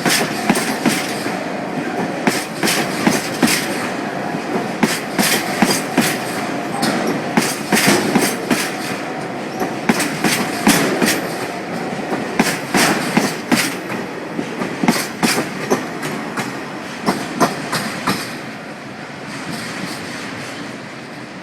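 Freight train of empty tank wagons rolling past, its wheels clicking over the rail joints in a fast, irregular clickety-clack. The clicks thin out after about eighteen seconds, leaving a quieter, steady rolling noise.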